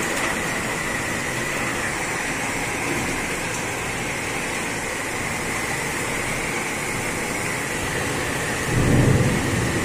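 Heavy rain pouring down in a thunderstorm, a steady rushing noise. A brief low rumble swells about nine seconds in.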